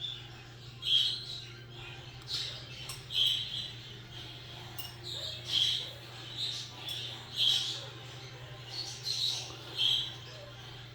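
Budgerigar chick begging, about ten short high cheeping calls roughly a second apart while it is being syringe-fed formula.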